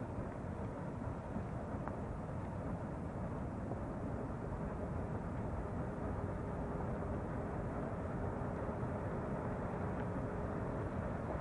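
Volcanic gas vent jetting a dense plume of steam and gas, giving a steady low rushing noise without breaks.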